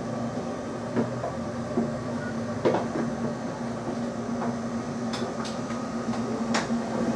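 The lifeboat's diesel engines ticking over, a steady hum heard inside the cabin, with a few light knocks.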